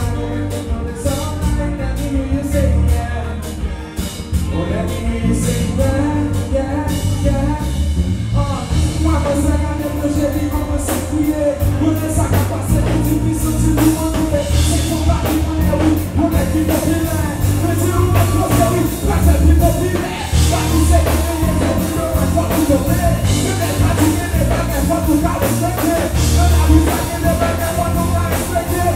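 Live band music with a male vocal: keyboard, heavy bass and drums playing a steady groove under a sung melody.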